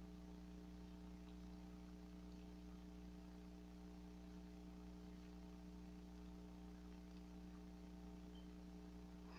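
Near silence apart from a steady electrical hum made of several even tones.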